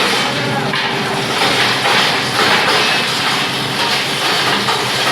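Plastic scrap grinder with blower running, a loud, steady, dense mechanical noise.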